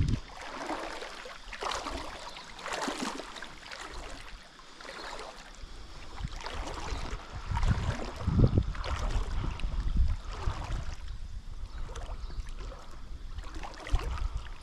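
Light water splashing and swishing as a swim jig is reeled across the surface of a river, with intermittent low rumbles on the microphone.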